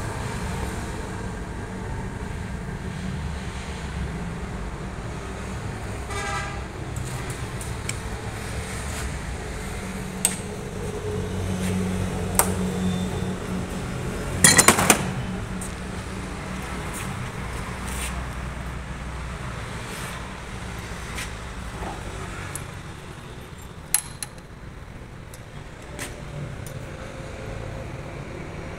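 Lathe running with a steady motor hum, with scattered metal clicks and knocks and a short burst of loud clanks about halfway through.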